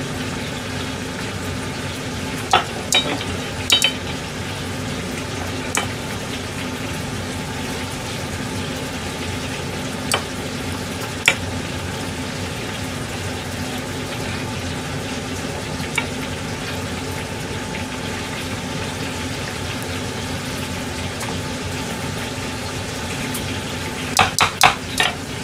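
Steady sizzle of chicken karaage deep-frying in oil. Over it come occasional short clicks and knocks of a metal potato masher against a saucepan as boiled potatoes are mashed, with a quick run of knocks near the end.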